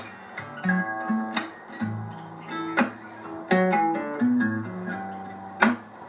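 Recorded song playing from a Marantz CD40 CD player through an Arcam Alpha 7R amplifier and loudspeakers, heard in the room: an instrumental passage of plucked and strummed guitar over bass notes, with a few sharp hits about every three seconds.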